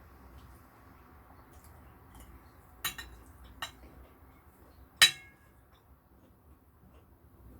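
Utensil clinking against dishware: a few sharp clinks about three seconds in, then the loudest clink about five seconds in, ringing briefly.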